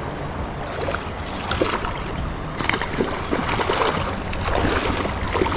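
Creek water sloshing and splashing, with irregular small knocks and clicks over a low rumble.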